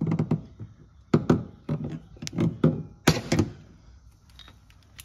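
Locking pliers and a flathead screwdriver clicking and knocking against a blind rivet's stem as it is twisted by hand. A sharper, louder crack about three seconds in, as the stem snaps.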